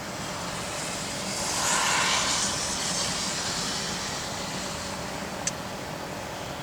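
Steady hiss of wind and rain heard from inside a car, with a rush of tyre hiss from a vehicle passing on the wet road that swells and fades about one to three seconds in. A single sharp click near the end.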